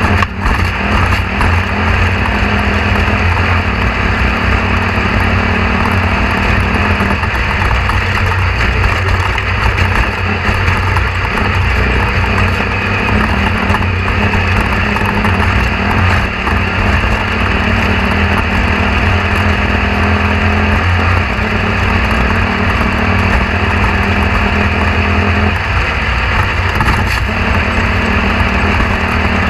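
A steady mechanical drone, a motor running without a break, with a constant low hum.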